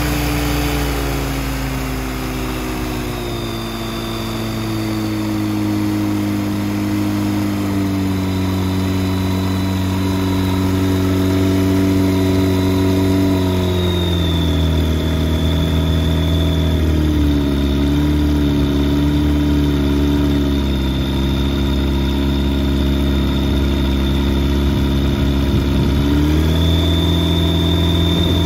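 Rotax 912iS fuel-injected 100 hp flat-four aircraft engine turning its propeller at ground idle, moments after its first start. It runs steadily, easing down in speed over the first half. It drops a step about halfway through, then picks up slightly near the end.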